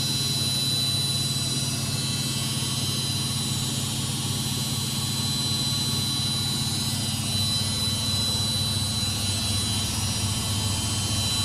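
Samsung washing machine drum spinning at high speed, about 1200 revolutions per minute, to drain the water from the clothes: a steady hum with a faint high whine.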